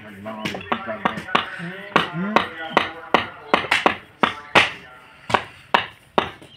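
Mallet tapping concrete interlocking paver blocks into their sand bed: a run of sharp knocks at an uneven pace, about two or three a second.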